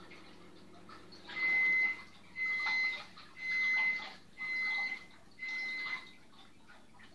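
An electronic beeper sounding five times, about one beep a second, each a high steady tone about half a second long, over a faint trickle of aquarium water.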